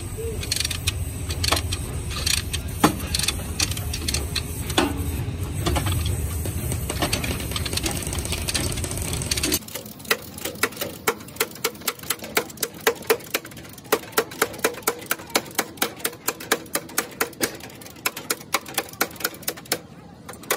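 A steady low rumble with scattered metal clinks and knocks; about halfway through, it cuts to a hand hammer tapping quickly and evenly on a car's crumpled sheet-steel front panel, about three blows a second, as the bent panel is beaten back into shape.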